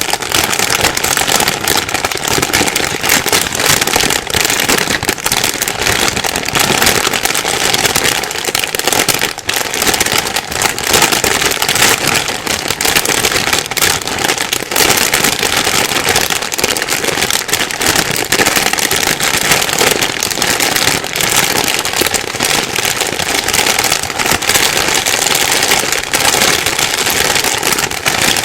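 Plastic bag being rustled and crumpled without pause: dense crinkling full of sharp little crackles.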